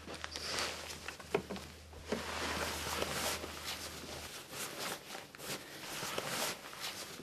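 Rustling and handling noises of a slippery fabric hoist sling being moved and slid into place, with scattered light knocks.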